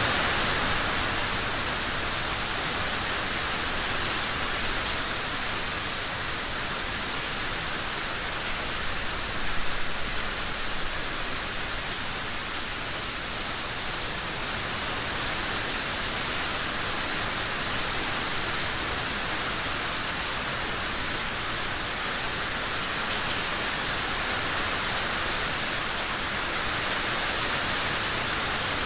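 Steady rain falling, an even hiss of many drops, swelling briefly about ten seconds in.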